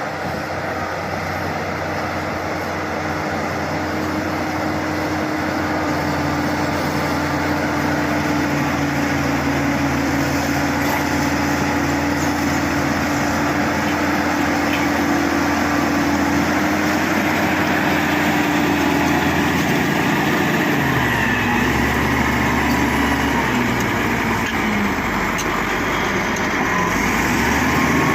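Bulldozer's diesel engine running steadily under work, its note dipping about two-thirds of the way through and picking up again near the end.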